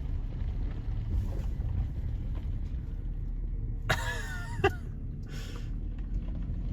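A vehicle driving, heard from inside the cab: a steady low rumble of engine and road. A brief wavering high-pitched squeak cuts through a little past the middle.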